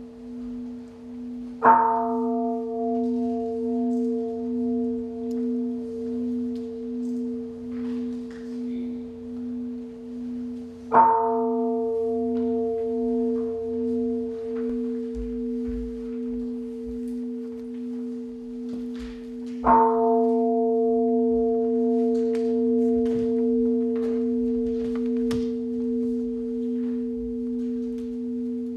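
Large bronze bowl-shaped standing bell (jwajong) struck three times with a padded wooden striker, about nine seconds apart. Each stroke starts sharp and leaves a long, slowly fading ring with a low hum that wavers in slow pulses.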